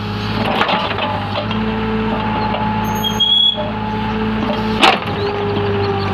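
Backhoe engine running steadily under work, with scattered clanks, a brief high squeal about three seconds in, and a sharp knock near the end.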